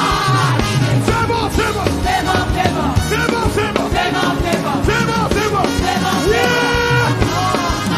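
Upbeat worship music with a steady beat and a lively, dancing rhythm; vocal or instrumental lines glide through it without clear words.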